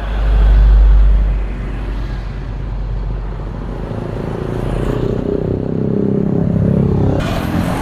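Road traffic passing close by: a small box truck goes past first, loudest with a deep low rumble in the first second and a half, then an SUV and motorcycles go by, their engines swelling from about four seconds in.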